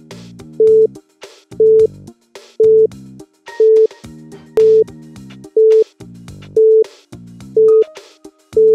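Quiz countdown timer sound effect: a short electronic beep once a second, nine in all, with faint clicks between the beeps.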